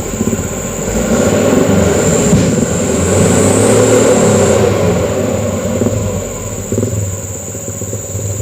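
Mitsubishi Canter truck's diesel engine labouring under load. It swells about a second in, holds for a few seconds, then eases off. A thin, steady high whine runs underneath.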